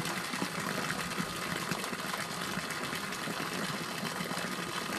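A thin stream of water pouring steadily from a hose outlet and splashing into the water below, driven by a small 12-volt bilge pump running on solar power.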